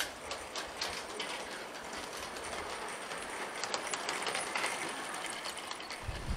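A model train running on a layout track, its wheels making a quick, steady patter of small clicks. A low rumble comes in right at the end.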